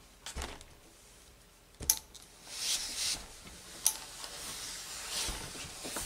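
A gravity-feed steam iron pressing a cut fabric piece: a few sharp knocks and clicks as it is handled on the table, and hisses of steam, the longest about two and a half seconds in.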